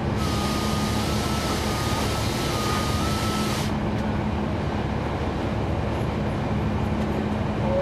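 Cummins ISL9 diesel engine of a NABI 40-SFW transit bus running steadily with a low drone, heard from the back seat inside the cabin. A steady high hiss comes in just after the start and cuts off suddenly after about three and a half seconds, with a faint tone stepping up and down in pitch while it lasts.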